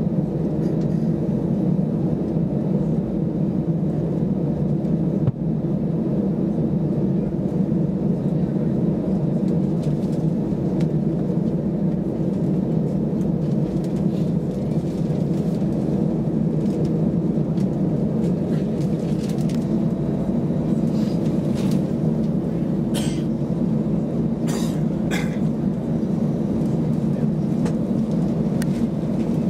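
Steady low rumble of an Airbus A320's engines idling, heard from inside the passenger cabin, with no spool-up. A few faint clicks come near the end.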